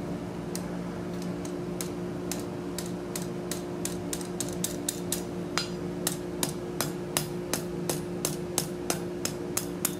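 Blacksmith's hand hammer striking red-hot forge-welded steel scroll stock on an anvil, in even blows about three a second, under a steady low hum.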